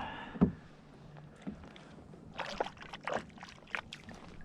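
Knocks and clicks of handling on a kayak: one sharp thump about half a second in, then a quiet spell and a run of small clicks and scrapes, as a freshly caught trout is laid out to be measured.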